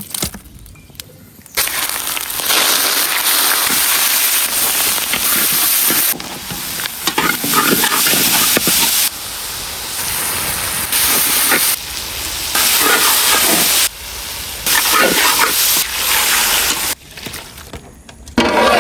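Food sizzling as it fries in hot oil in a pan, in several short stretches that start and stop abruptly.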